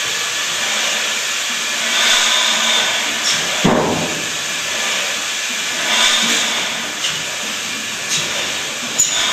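Large old stationary multi-cylinder engine with a big flywheel, giving a steady hiss that swells into a louder whoosh about every two seconds, with one heavier thud a little before halfway.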